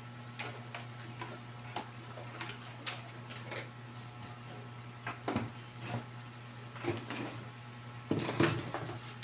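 Scattered light clicks and taps of tools and parts being handled on a workbench, with a louder clatter about eight seconds in, over a steady low hum.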